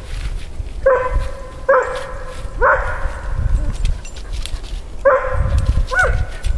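A dog barking: five short, high-pitched barks, three about a second apart, then two more after a pause near the end.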